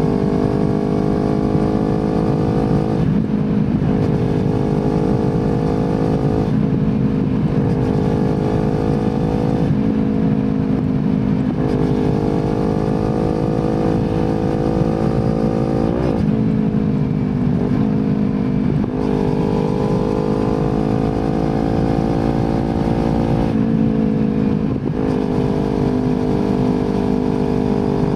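Kawasaki Z250 engine heard through an aftermarket slip-on exhaust while riding. The engine note climbs slowly and then breaks for a gear change every few seconds, with a low rumble of wind and road underneath.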